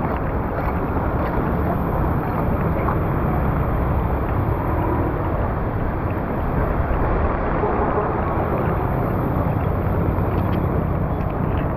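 Floodwater rushing steadily through a street drain: a continuous low, rumbling wash of noise.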